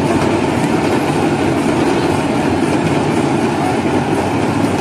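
Steady, loud din of a dense festival crowd.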